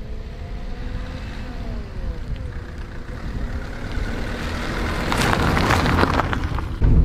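White Opel Combo van driving along a gravel road toward the camera and passing close by, its engine growing louder as it nears. About five seconds in, tyres crunch over loose gravel and stones as it goes by. Near the end a steady, louder engine rumble takes over.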